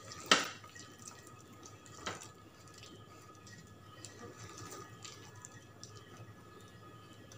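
Hand squeezing and mixing thick urad dal (medu vada) batter in a steel bowl: faint wet squishing. A sharp click comes just after the start, and a softer one about two seconds in.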